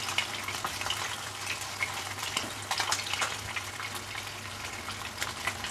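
Marinated vanjiram (seer fish) steaks shallow-frying in oil in a nonstick pan: steady sizzling dotted with many small crackles and pops.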